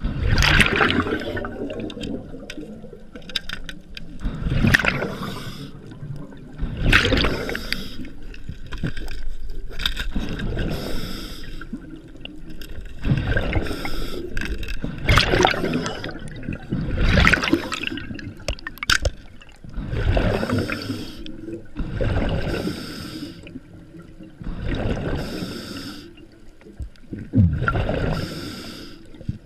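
Underwater water noise on the camera: gurgling and rushing water in repeated surges every two to three seconds.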